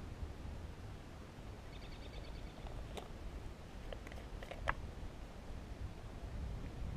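A few sharp little clicks and taps as a fishing lure and its hooks are handled, with a brief run of rapid faint ticking before them, over a low wind rumble.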